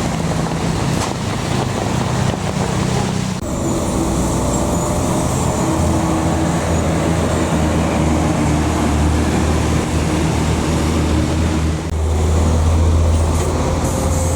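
Heavy road vehicles' diesel engines running on the road with traffic noise, a strong low engine hum throughout. The sound changes abruptly about three seconds in and again about twelve seconds in.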